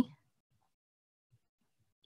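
Near silence: a woman's spoken word trails off at the very start, then the audio goes dead quiet.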